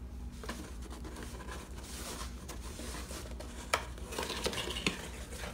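Cardboard box being handled and opened by hand: scratching and rubbing, with scattered small clicks and two sharper ones near the end, over a low steady hum.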